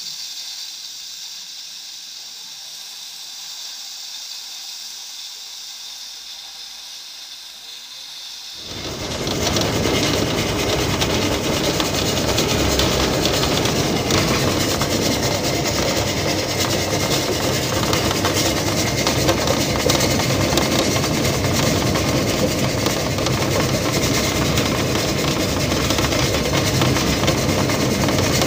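Narrow-gauge steam locomotive heard from its cab: a steady hiss of steam at first, then about nine seconds in the much louder running noise of the locomotive under way, with rattling and rail clatter.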